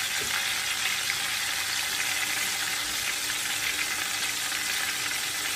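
Chopped tomatoes and golden-fried onions sizzling in hot vegetable oil in a cooking pot: a steady hiss with faint crackles.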